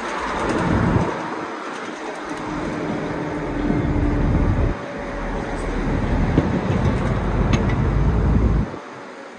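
Ride noise of a moving city bus heard from inside the cabin: a deep engine and road rumble that swells and eases, then drops away abruptly near the end.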